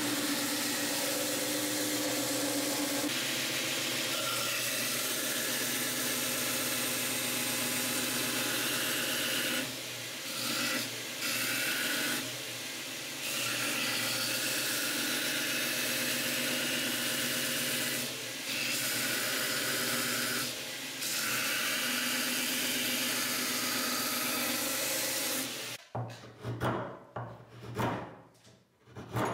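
Belt grinder running with a wooden axe-handle blank pressed against its abrasive belt, sanding the wood in several passes with short breaks where the pressure eases. The grinding cuts off abruptly near the end.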